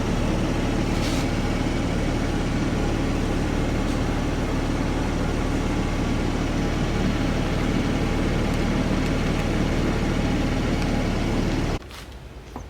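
Car engine idling steadily with an even low hum. It begins and cuts off abruptly, stopping near the end.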